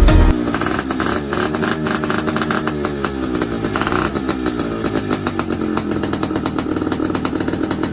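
Yamaha RX100's two-stroke single-cylinder engine running and being revved, its pitch rising and falling.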